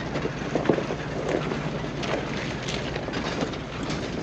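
A vehicle engine running steadily while driving slowly over a rough dirt road, with small scattered ticks over a steady low hum.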